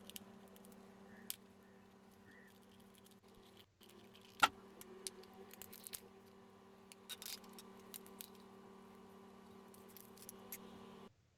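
Faint scattered clicks and small rattles of plastic casing parts and screws being handled while a hair dryer is taken apart, the sharpest click about four and a half seconds in, over a steady low hum.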